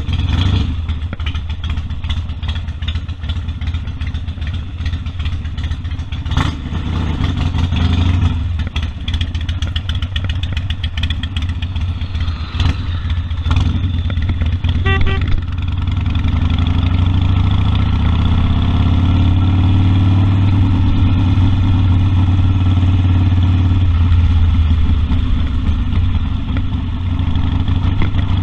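Harley-Davidson Sportster 1200 Custom's air-cooled V-twin running under way, with wind noise. About halfway through, the engine note climbs as the bike accelerates, holds steady for several seconds, then drops back near the end.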